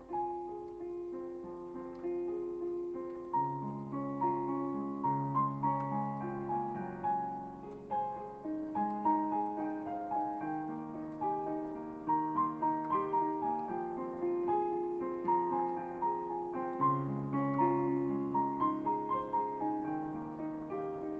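Background solo piano music: a flowing melody of short notes over longer, held low notes.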